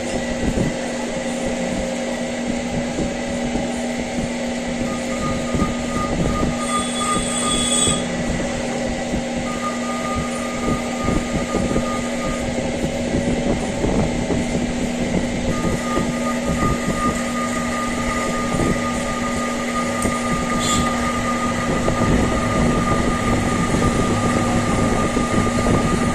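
Lathe running steadily with a constant motor hum and the crackle of a cut, while a thin high whine from the tool comes and goes: on for a few seconds, off, then back from about midway on.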